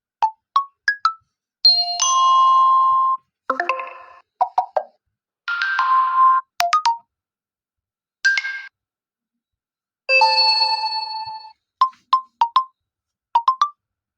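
Tecno Spark 20 Pro (HiOS 13.5) preset notification tones previewed one after another: about a dozen short electronic chimes, plinks and tiny tune snippets, each a second or less, with short silences between them.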